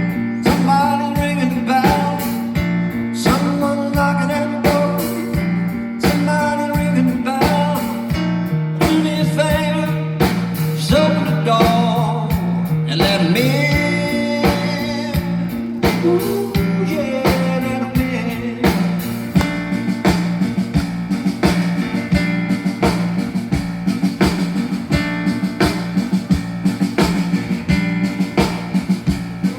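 Live rock band playing: a repeating bass line and steady beat under a wavering lead melody.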